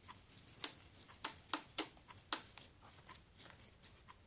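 Plastic spoon stirring a mix of water-based glue and liquid soap in a plastic bowl: a string of faint, irregular clicks and taps as the spoon knocks and scrapes against the bowl.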